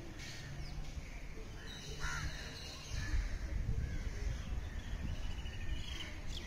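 Crows cawing, with other birds calling now and then, over a low rumble that grows louder about three seconds in.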